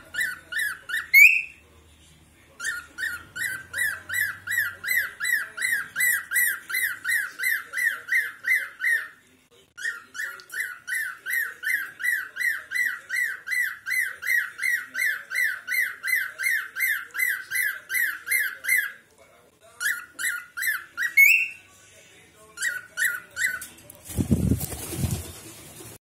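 Cockatiel chirping in long runs of rapid, evenly repeated high notes, about four to five a second, broken by short pauses and a couple of rising whistle-like notes. A brief low rumble comes near the end.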